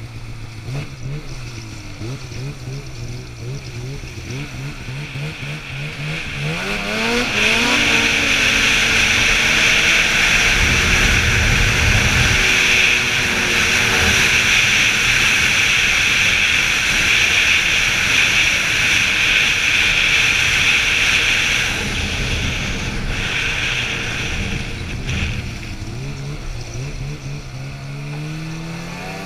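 Polaris Switchback Pro-R snowmobile's two-stroke engine at low, uneven revs. About six seconds in it revs up and runs flat out for some fifteen seconds with a loud steady hiss over it. It then eases off and revs up again near the end.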